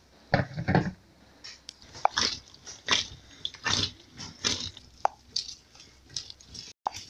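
Hands kneading a stiff flour-and-water dough on a work surface: irregular soft slaps, thuds and squishes, about one or two a second, as the dough is pressed and folded.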